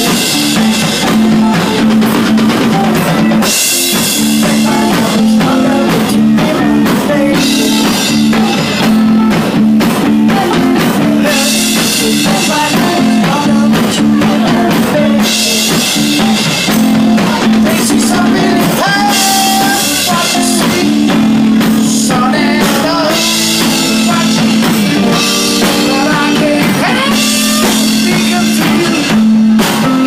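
Live band playing loud: a man singing into a microphone over electric guitar and drum kit.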